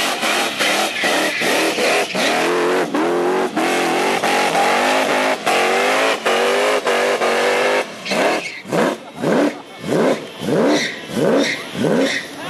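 Supercharged V8 of a burnout ute held at high revs with the rear tyres spinning, its pitch wavering up and down. About eight seconds in, it drops to sharp throttle blips, about two a second, each rising quickly and falling away.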